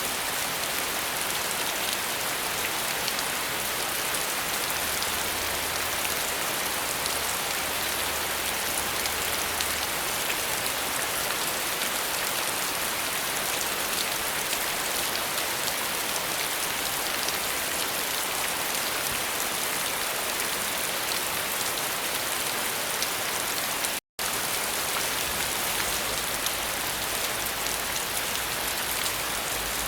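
Steady, dense rainfall, heavy and even, with no pauses. It cuts out for a split second about 24 seconds in.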